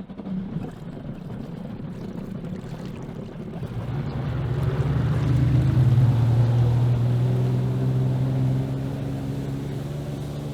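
Two-stroke jet ski engine running on the water. It grows steadily louder over the first five seconds or so, then slowly fades.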